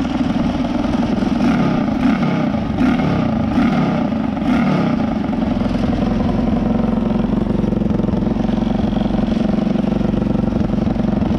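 A 250cc engine fitted to a riding lawn mower, running through its upright exhaust pipe: it is revved in a few short blips over the first five seconds, then idles steadily. It runs on the choke because of air leaks at its home-made intake plates; without choke it stalls when the throttle is opened.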